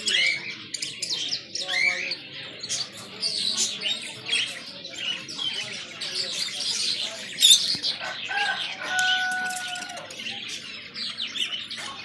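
A flock of caged budgerigars and cockatiels chattering and chirping, many short overlapping calls at once. A steady note is held for about a second and a half past the middle.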